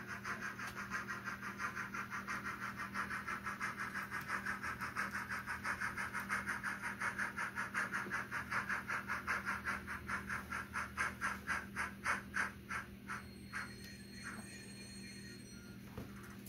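Sound decoder of an N scale Athearn Union Pacific Challenger model (ESU LokSound V5 micro with the UP Challenger steam sound file) playing rapid steam exhaust chuffs through its tiny speaker. The chuffs slow down and fade as the locomotive comes to a stop, ending about 13 seconds in, after which only faint steady standing sounds remain.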